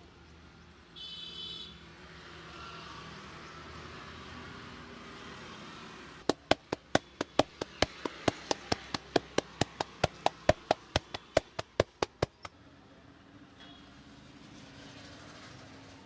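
A quick run of sharp slapping strikes, about five a second for some six seconds, from a massage therapist's hands percussing the client's back.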